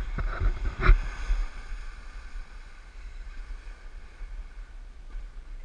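Snowboard edges scraping and sliding over packed snow, a rushing hiss with wind buffeting the camera microphone. It is rougher, with a couple of knocks, in the first second or so, then steadier.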